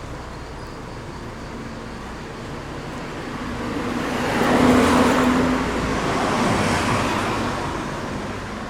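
A road vehicle passing by: engine and tyre noise swell to a peak about halfway through, then fade, over steady traffic noise.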